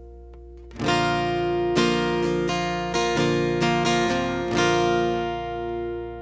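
Acoustic guitar played through a FET preamp pedal and recorded straight from the line signal: a chord struck about a second in, then a quick run of strummed and plucked chords, the last one left ringing out and fading.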